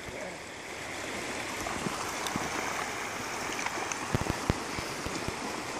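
Shallow stream running over a gravel bed, a steady rush of water, with a few soft low thumps about four seconds in.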